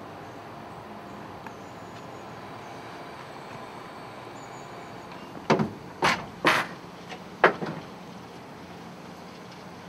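Low steady background hum, then a run of about five sharp metal clunks and knocks over roughly two seconds, starting a little past halfway: the hydraulic capstan winch equipment being handled and stowed in the vehicle's load bed.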